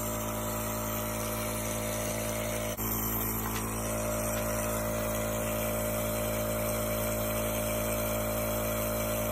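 Boryan Air C+ tabletop nebulizer's compressor running with a steady mechanical hum, delivering a breathing treatment through the mask.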